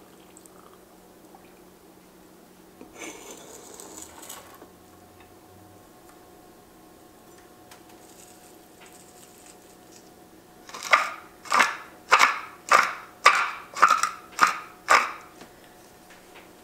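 Pepper mill being twisted in seven quick, crunchy grinds, about one every 0.6 seconds, cracking black pepper. A softer rustling burst of about a second and a half comes a few seconds in.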